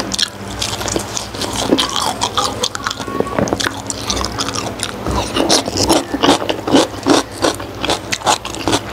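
Close-up wet chewing and lip-smacking of soft steamed pig skin and raw herbs, a quick irregular run of short clicks and squelches.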